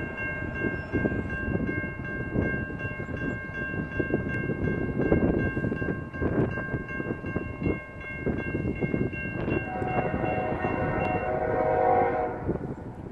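Railroad crossing bell ringing steadily, over wind rumbling on the microphone. Near the end the bell stops and a distant freight locomotive's air horn sounds for a couple of seconds as the train approaches.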